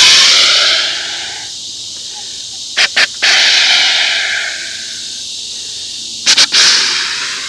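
Woodhaven Proflex snort-wheeze deer call blown three times, imitating a rutting buck's dominance challenge. A long hissing wheeze that fades out is followed by two more full calls, each two short sharp puffs and then a long wheeze fading over a second or two.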